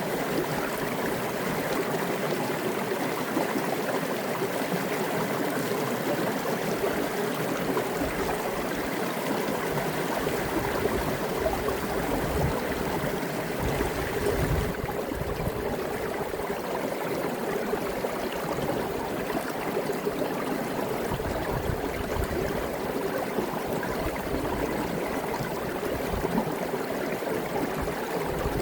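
Small waterfall in a partly frozen mountain creek: water cascading down a rock in a steady, even rush and splash.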